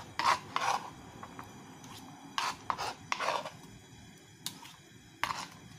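A metal utensil stirring diced onion in a glass bowl of water, with several short scrapes and clinks against the glass.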